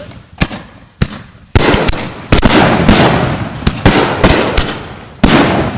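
Consumer firework artillery shells from a loaded rack going off, with salute-type shells among them: about ten loud, sharp bangs in quick succession, each trailing off slowly.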